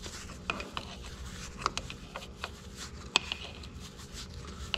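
Irregular clicks and taps of hand work on a hydraulic cylinder fitting as an adapter bushing is fitted into the port, over a steady low hum.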